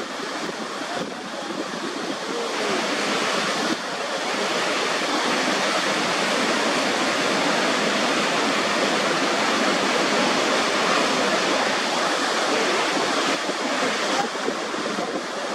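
Niagara Falls: a huge volume of water rushing over the brink in a steady, dense rush of noise. It grows louder about four seconds in, then holds level.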